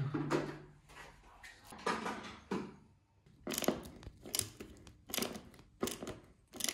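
A thump at the start, then a hand screwdriver driving a screw into a particleboard furniture panel: a string of sharp scraping clicks, about two a second, through the second half.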